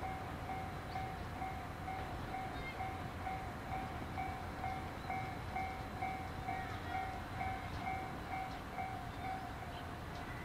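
Japanese level crossing warning bell ringing about three times a second in a steady two-tone clang, cutting off near the end. A low rumble runs underneath as the MRT300 diesel railcar approaches.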